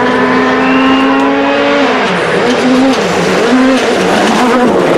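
Hyundai i20 WRC rally car's turbocharged four-cylinder engine approaching at high revs. It holds one steady note for about two seconds, then the pitch dips and climbs again several times as it comes closer.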